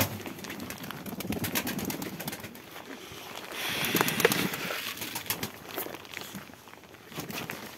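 Domestic pigeons cooing, with scattered sharp taps and a brief flurry of wing flapping about four seconds in.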